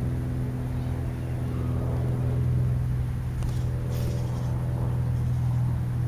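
Steady low mechanical hum at a constant pitch, with a few faint high clicks about four seconds in.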